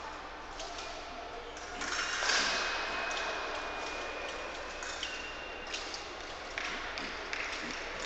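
Electric épée scoring machine sounding a steady high beep for about three seconds as a touch registers, just after a short loud burst of noise. A slightly higher tone follows briefly.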